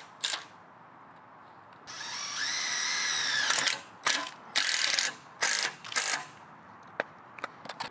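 Makita cordless driver driving a self-drilling screw through a galvanised steel post into its bolt-down bracket: one long run about two seconds in, its whine rising in pitch then winding down, followed by three short bursts as the screw is seated.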